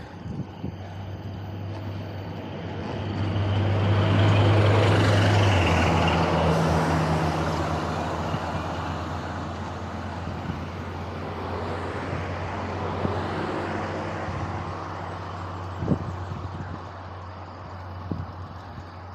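A bus and a car overtake the bicycle: engine hum and tyre noise swell to a peak about four to six seconds in, then fade slowly as they draw ahead. A single sharp knock near the end.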